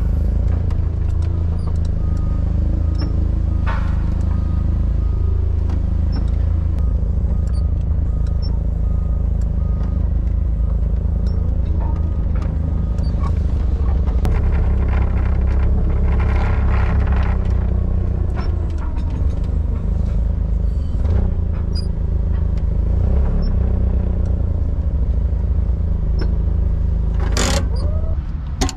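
Forklift engine running steadily as the truck is driven with a load on its forks, with scattered rattles and clunks and one sharp clunk near the end.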